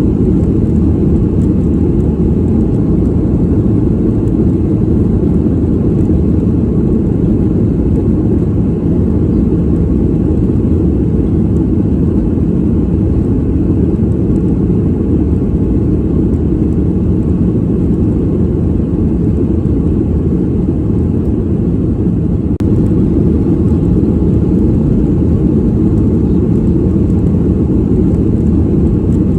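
Airliner cabin noise in flight: a steady, deep rumble of engines and rushing air, with a slight step up in level about three-quarters of the way through.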